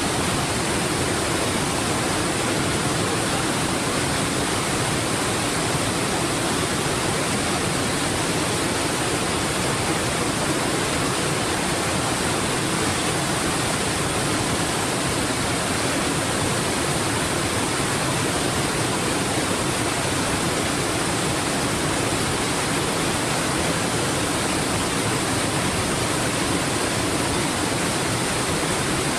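Waterfall: the steady rush of water falling over rock ledges and splashing into the pool below, an unbroken roar spread across low and high pitches.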